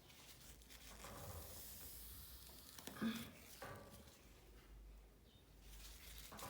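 Faint rubbing and rustling of a kitchen towel scrubbing stubborn stains off a gas cooker knob, with a few soft strokes about halfway.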